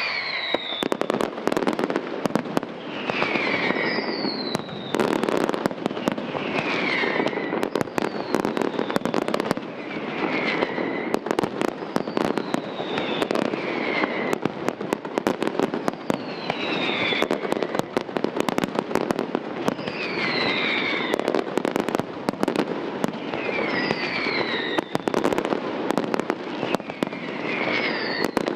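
Aerial fireworks display: a dense run of rapid bangs and crackling from bursting shells, with a falling whistle every two to three seconds. The bangs start suddenly at the beginning.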